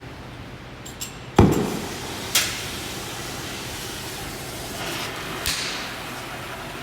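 Three hard knocks, about a second and then three seconds apart, the first the loudest and heaviest, as tools strike metal during work on a farm machine's wheel; a steady rushing noise runs on from the first knock.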